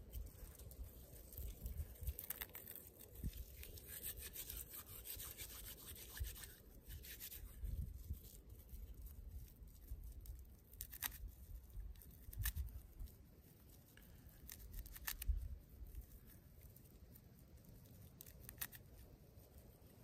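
Faint dry scratching and crackling of a wad of plant-fibre tinder being rubbed between the palms and torn apart, with scattered small sharp ticks. The material is being broken down into fluffy fibre for a fire-starting bird's nest.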